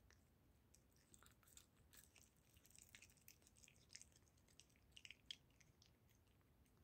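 Cat chewing and biting at soft liverwurst in its casing: faint, irregular wet clicks and smacks of chewing, busiest in the middle, with one sharper click about five seconds in.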